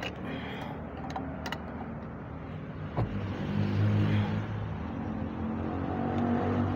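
A few sharp metal clicks and a knock from a wrench working a metal pipe fitting on a water pump, over the low hum of an engine running, which grows louder about three seconds in.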